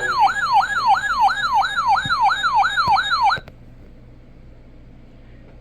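Electronic siren-style alert tone: a rapid falling sweep repeated about four times a second, cutting off suddenly about three and a half seconds in, leaving only faint radio hiss.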